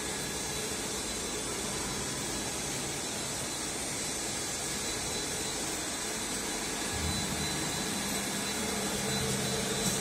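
A PVC wire extrusion line running: a steady machine whir with a thin high tone, joined by a deeper hum about seven seconds in.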